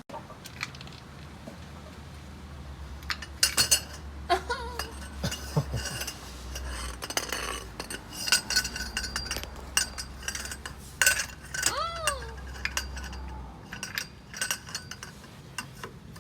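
Metal hand tools, sockets and a wrench, clinking and clanking against each other and the metal underneath, with a short rising-then-falling squeak about three quarters of the way through.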